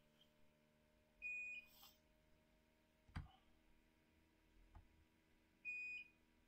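Two short, high electronic beeps from the computer, about four and a half seconds apart, with a single sharp click between them, over a faint steady hum.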